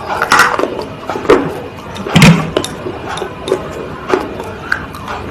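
A series of irregular crisp crunches and cracks, roughly one every half second to second, the loudest about two seconds in with a dull thud under it.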